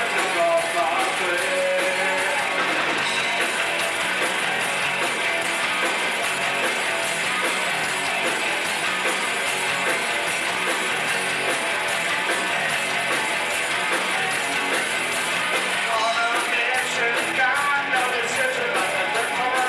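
Live rock band playing with electric guitars and drums. From about three-quarters of the way through, sharp drum and cymbal hits come through in an even beat.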